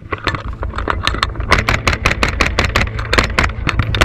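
Rapid, irregular gunfire: sharp cracks several times a second over a low steady rumble.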